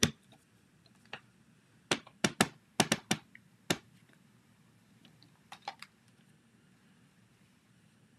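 Sharp taps and clicks of a stamp being inked on an ink pad and pressed down onto card, in quick groups of two or three, loudest between about two and three seconds in, with a few fainter taps near six seconds.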